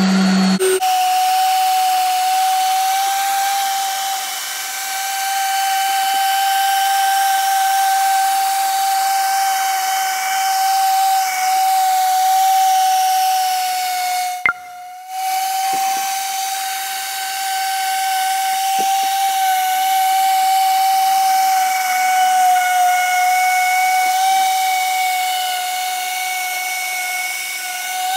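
Random orbital sander running with 2000-grit paper on epoxy resin, giving a steady high-pitched whine. The whine drops out for about half a second around the middle.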